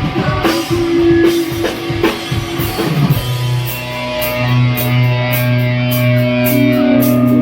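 Rock music with electric guitar and drum kit: busy drumming for the first few seconds, then held guitar chords under regular cymbal hits.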